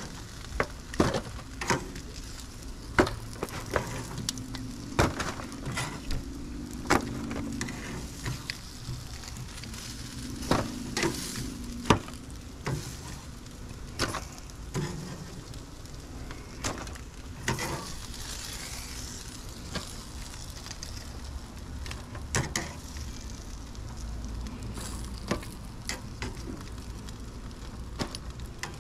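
Chicken leg quarters sizzling on a charcoal grill over direct heat, with frequent sharp clicks and pops.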